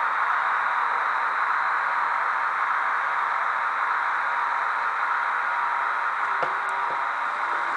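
Model railway freight wagons rolling past on the track, a steady even rushing hiss from wheels on rails, with a few faint clicks about six and a half seconds in.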